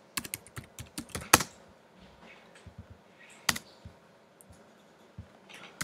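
Typing on a computer keyboard: a quick run of keystrokes in the first second and a half, then a few isolated keystrokes, one sharper about three and a half seconds in.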